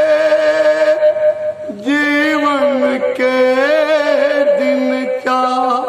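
A man singing into a handheld microphone over a steady backing drone. He holds one long note, breaks off about a second in, then goes on with wavering, ornamented notes.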